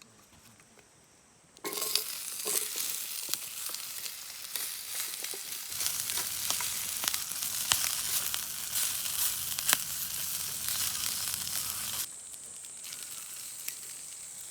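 Food sizzling and frying in a hot pan over a campfire, a dense hiss full of small crackles. It starts abruptly about a second and a half in and cuts off sharply near the end.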